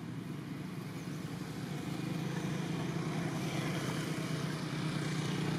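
Road traffic: a motor vehicle's engine hum and tyre noise, getting gradually louder as it approaches.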